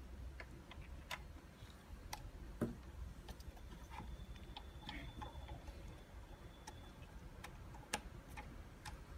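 Scattered small plastic clicks and taps as a wiring-harness connector is handled and pushed into the back of a car head unit. A sharper click comes about two and a half seconds in and another near the end.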